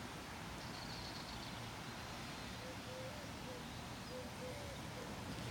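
Faint outdoor ambience with distant birds calling over a steady background hiss: a short high trill about half a second in, then a series of short, low, hooting notes through the second half. No thunder is heard.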